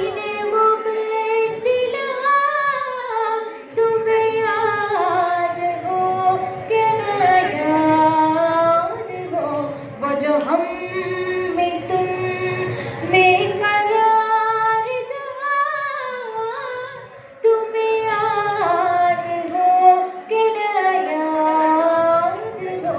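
A girl singing an Urdu ghazal solo: long held notes with slow ornamented slides in pitch, over a faint steady drone, with short breaths between phrases.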